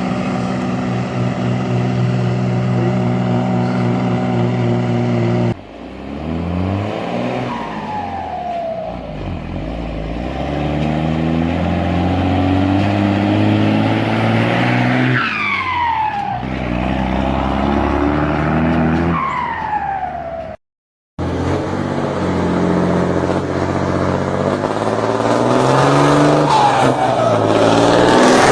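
Turbocharged diesel engine of a Mercedes-Benz 1518 truck. It runs steadily, then accelerates through the gears, its note rising and dropping with each shift. A falling turbo whistle comes at several of the shifts.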